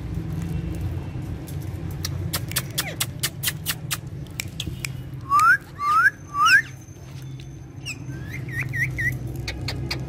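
Alexandrine parakeets whistling: three loud rising whistles in quick succession around the middle, then a few short wavering chirps near the end. Sharp clicks and short chirps come earlier, over a steady low background hum.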